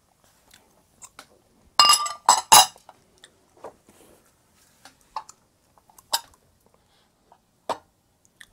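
A quick run of loud clinks and knocks with a brief ringing about two seconds in, then scattered lighter clicks and taps: tableware being handled and set down.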